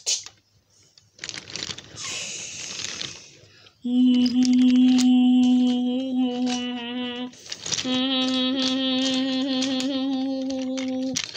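A child humming two long, steady notes on one pitch, each about three seconds, like a train horn, starting about four seconds in. Before that, a soft rustle of toy train cars on the track.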